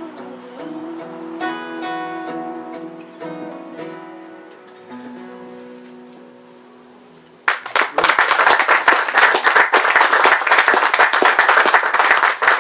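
An acoustic guitar song ends on held notes that fade away. Then, about halfway through, an audience breaks into applause, louder than the music was.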